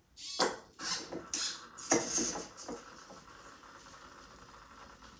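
Servo motors of a 3D-printed robot arm whirring in several short bursts as the joints move through a pre-programmed cube-stacking sequence. The movements stop after about three seconds.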